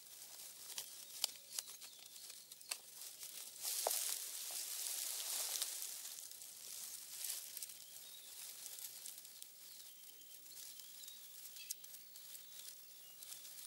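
Honey badger scrabbling and rolling in dry leaf litter: faint rustling with scattered light clicks, louder for a couple of seconds about four seconds in.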